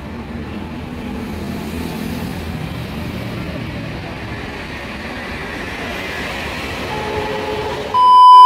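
Metro train pulling into an underground-style station platform: a steady rumble of the train and platform noise, with a few faint steady tones near the end. About 8 seconds in, a sudden loud high electronic beep cuts in over it.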